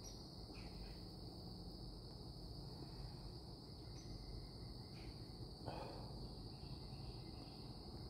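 Crickets chirring steadily in one high, even band, over a faint low rumble, with a brief soft rustle about two-thirds of the way through.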